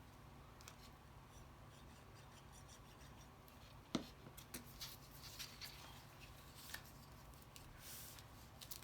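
Faint handling of paper cardstock as a glued box card is folded closed: a single sharp tap about four seconds in, then light scattered rustles and taps.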